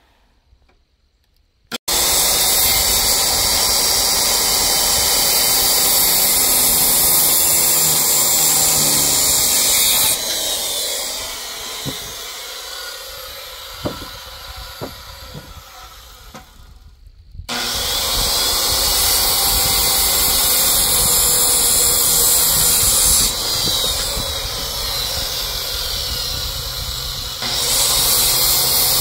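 Circular saw starting suddenly and cutting through a thick reclaimed-wood leg post, running steadily for about eight seconds. A quieter stretch with a few sharp knocks follows, then the saw starts again for another long cut.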